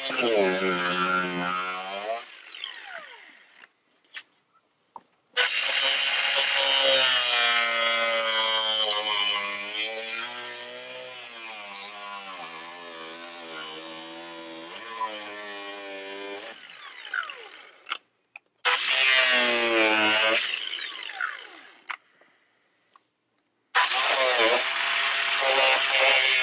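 Electric power tool trimming a car bumper. It runs in four bursts that cut in and out abruptly, and its pitch wavers and sags while it cuts.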